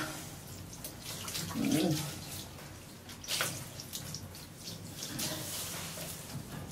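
Water splashing and running as a cat's coat is wetted and washed in a tub, with splashes growing steadier in the last couple of seconds. A brief voice-like sound comes about two seconds in.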